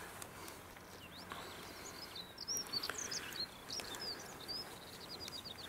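Faint birdsong: a small bird's high, short chirps and whistled notes, ending in a quick trill of repeated notes near the end.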